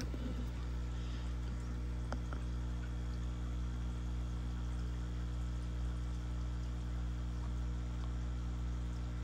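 Steady low electrical mains hum, with a faint click about two seconds in.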